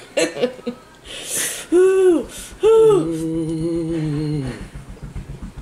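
Pained vocal reactions to a ghost pepper's burn: a breathy exhale, two short rising-and-falling "ooh" cries, then a long closed-mouth "mmm" moan.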